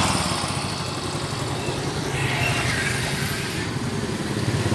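Yamaha Mio i125 scooter's single-cylinder engine idling steadily, just after a tune-up with its valve clearances freshly adjusted.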